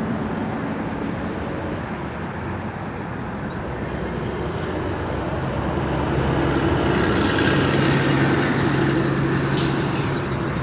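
Four-engine Boeing 747 on final approach: a steady jet-engine rumble with a faint whine, growing louder in the second half as the airliner comes closer.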